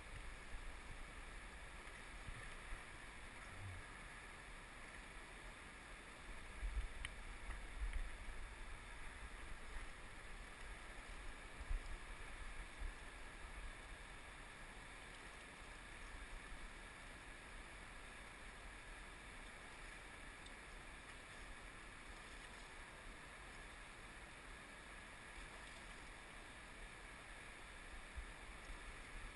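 Steady faint rush of a fast-flowing river current, with wind brushing the microphone and a few low thumps around a third of the way in.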